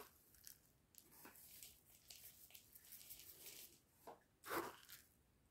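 Rolled oats being tipped from a plastic tub into a wire-mesh sieve a little at a time: faint, dry rustling and pattering in short spurts, with one louder rustle near the end.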